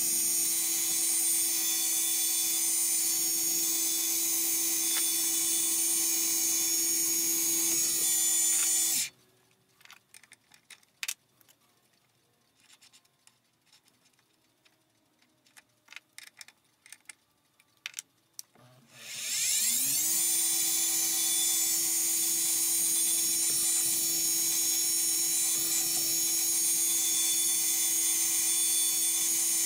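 Small machine-tool spindle motor running at a steady pitch while drilling a hole through a graphite piston. It spins down about nine seconds in, a few light clicks of handling follow, and about nineteen seconds in it spins back up and runs steadily again.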